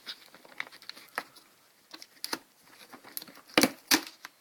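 Scissors working at the tape seal on a cardboard box: scattered crinkling and small snipping clicks, with two sharper knocks close together a little after three and a half seconds in.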